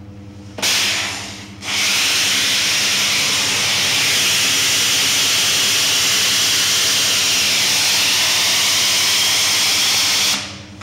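Pressure washer lance spraying a greasy floor. A short burst of spray hiss comes about half a second in, then a steady spray from about two seconds in, cut off near the end, over the machine's steady hum.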